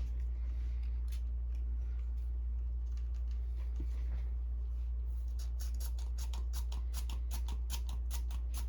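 Light scratchy ticks from handling and wiping an inkjet ink cartridge, starting about five seconds in as a quick run of four or five a second, over a steady low hum.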